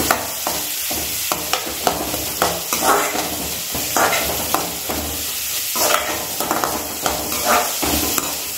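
Chopped onions sizzling in hot oil in a metal kadai while a metal spoon stirs them. The spoon scrapes and clinks against the pan at irregular moments over a steady frying hiss, as the onions are sautéed.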